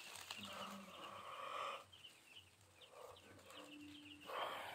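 A brood of young chicks peeping, many short high cheeps overlapping throughout. A soft rushing noise runs under them, strongest in the first two seconds and again near the end.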